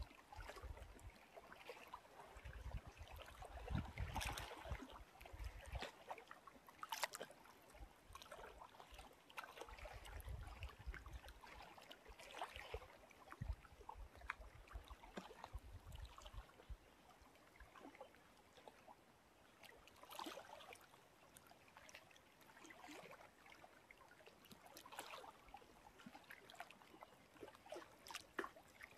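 Small lake waves lapping and splashing faintly and irregularly, with a few sharper splashes now and then. A low wind rumble on the microphone comes and goes in the first half.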